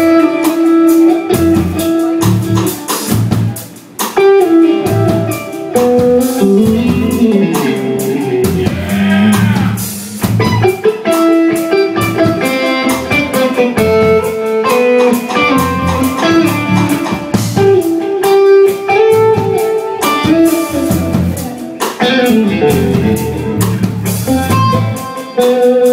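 Live blues-rock band: electric guitar playing a lead line over bass guitar and drum kit, with a wavering bent note about nine seconds in.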